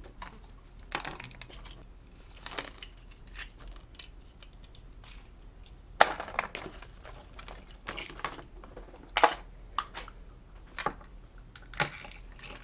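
Small plastic toy eggs being cracked open by hand: an irregular run of plastic cracks, clicks and crinkles, with a few sharper snaps about halfway through and near the end.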